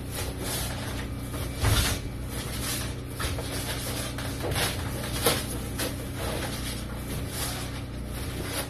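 Foil-faced foam insulation panel being pushed and pressed by hand into a steel garage door section: irregular rustling, scraping rubs across the foil and panel, with a louder bump against the door about two seconds in.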